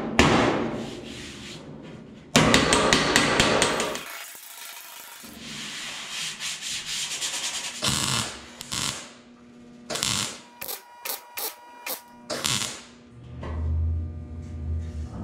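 Sheet-metal repair on a Model A Ford body: MIG welding crackle and a quick run of hammer blows ringing on the steel panel.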